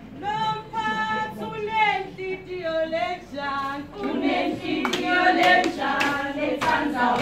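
A group of women singing a traditional Swazi song: a single voice opens with a long held note, then the other voices join in. From about halfway through, sharp rhythmic percussive beats come in under the singing.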